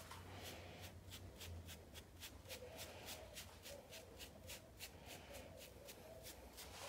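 Hairbrush bristles swept quickly through short curly hair, a faint, quick run of swishes at about four strokes a second.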